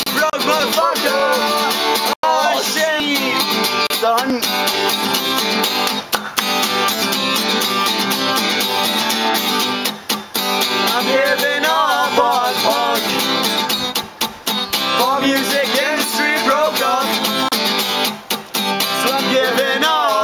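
Acoustic guitar strummed as the accompaniment to male singing.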